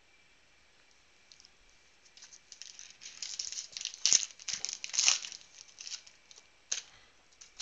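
A foil pack of 2017 Panini Prizm football cards being torn open by hand: crinkling foil that starts about two seconds in, with two sharp loud rips about four and five seconds in. A single sharp click comes near the end.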